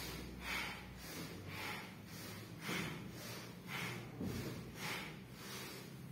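A group of choir singers doing a forceful breathing exercise in unison: short, hissy breaths, about one a second, in a steady rhythm.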